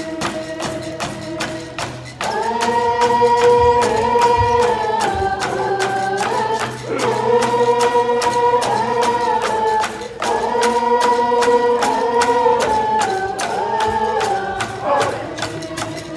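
Group of voices singing a Coast Salish song in unison over a steady, even beat on hand-held frame drums. The singers move up to a higher, louder phrase about two seconds in and carry on in repeated phrases.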